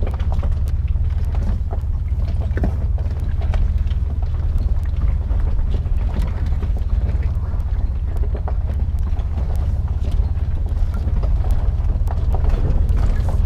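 Toyota 4Runner's engine running at low speed, heard from inside the cabin as a steady low drone, with scattered knocks and rattles as the truck crawls over a rough, rocky dirt trail.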